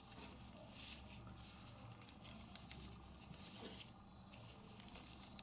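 Origami paper rustling and creasing under the fingers as folded flaps are pressed back into place. It comes in short scratchy bursts, loudest about a second in.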